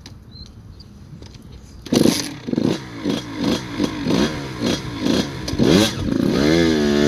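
Small Kawasaki dirt bike engine kickstarted: it catches with a sudden burst about two seconds in, revs up and down about twice a second, then settles into a steady, slightly wavering idle near the end.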